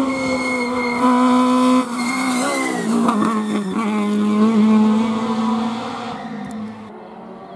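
Rally car engine running at high revs as the car comes down the lane and passes close by. The revs drop and waver about three seconds in, then hold steady as it goes past, and the sound fades over the last second or two as it pulls away.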